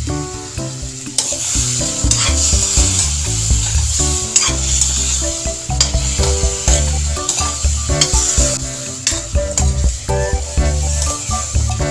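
Chicken feet sizzling in a wok while a metal spatula stirs them, with repeated scrapes against the pan. Background music with a stepping bass line plays along.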